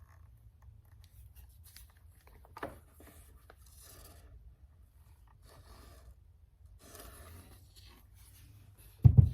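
Faint rustling and rubbing, as of things being handled, with a small knock a little under 3 s in and a loud low thump near the end.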